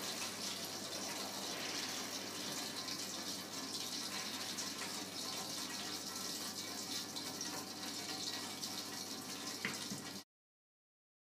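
Steady hiss of professional-kitchen background noise, with a faint click near the end; the sound cuts off suddenly about ten seconds in.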